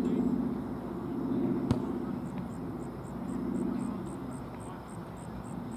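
Outdoor background: a low rumble that swells and fades, a single sharp click a little under two seconds in, and from about halfway a high insect chirp repeating about three times a second.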